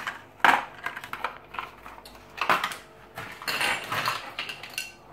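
Stiff clear plastic packaging being handled and opened, crackling and clicking in a run of short, sharp bursts.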